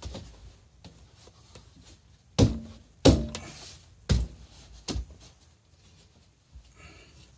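Four dull thumps and knocks over about three seconds, with quieter handling between them, as the seat cushion of a swivel bar stool is handled and set into place on the chair.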